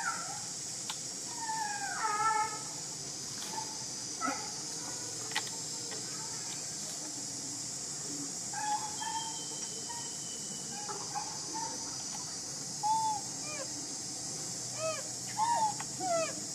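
Short, high squeaks and whimpering calls from a baby long-tailed macaque, many of them falling in pitch, in scattered groups with a quick run of them near the end, over a steady high insect hiss.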